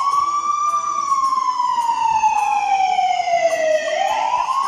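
Siren wailing: a slow wail that peaks about a second in, glides down in pitch for nearly three seconds, then starts rising again near the end.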